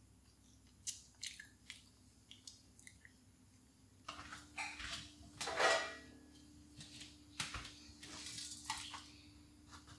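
A child chewing a soft almond-flour cookie, heard as quiet scattered mouth clicks and small chewing noises. They are sparse at first and get busier after about four seconds, with one louder noise about five and a half seconds in.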